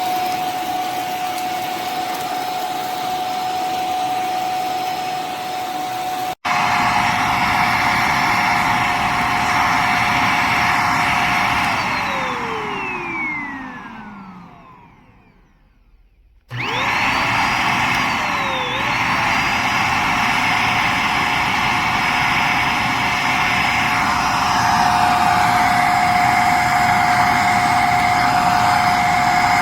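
Corded stick vacuum cleaner's motor running with a steady whine. About twelve seconds in it is switched off and winds down, pitch falling, to near silence. About sixteen seconds in it is switched back on, spins up and runs steadily again. The owner reports the vacuum gives no suction and its motor housing gets extremely hot.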